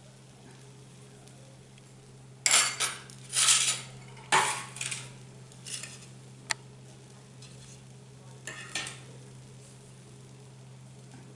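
Tableware being handled as a glass serving plate is moved on the table: a run of short scrapes and rustles with one sharp click, over a steady low hum.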